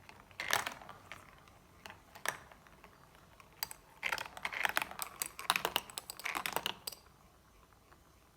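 Marbles clicking and rattling as they roll down a marble run track, in short clusters of quick clicks. The clatter is busiest in the middle and dies away about a second before the end.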